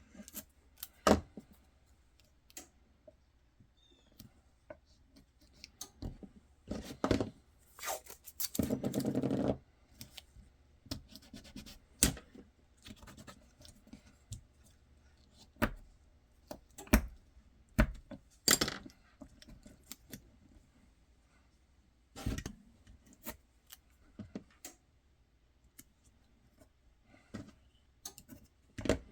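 Scattered clicks and knocks of hard parts being handled and set down on a workbench as blocking is placed around a pistol mold for Kydex forming, with one scrape lasting about a second roughly a third of the way in.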